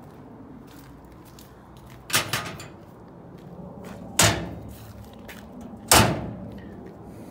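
Three sharp bangs about two seconds apart, each trailing off with a short ring.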